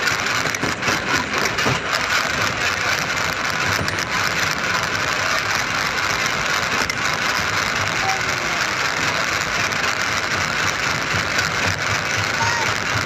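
A construction machine's engine running steadily.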